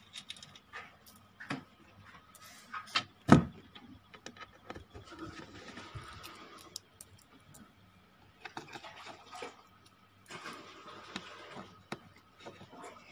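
Handling noise: scattered clicks, knocks and rubbing as hands work the cables and back panel of an amplifier cabinet, with one sharper knock about three seconds in.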